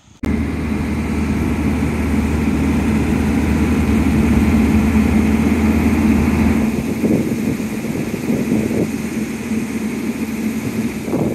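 Mobile crane truck's engine running steadily while the crane lifts a tram carriage body off a semi-trailer; the deepest part of the engine note falls away about two-thirds of the way through.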